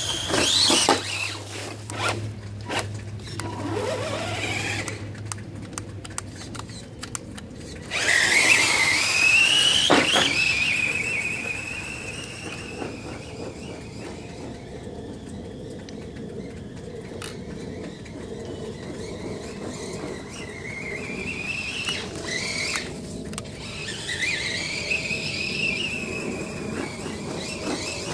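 The Kyosho Outrage RC truck's Titan 550 12-turn brushed electric motor whining. Its pitch climbs and falls again and again as the truck speeds up and slows down. It is loudest near the start and again a few seconds later, fades to a lower, steadier whine in the middle while the truck is far off, and picks up again near the end.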